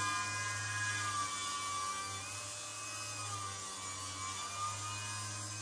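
Spindle moulder running with its power feed: a steady whine over a low hum, the whine shifting slightly in pitch about a second in and again near the middle.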